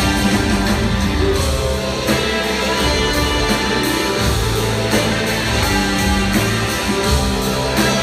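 Rock band playing live in a theatre, heard from the audience through a phone's microphone: guitars, bass and drums carrying a steady passage of the song.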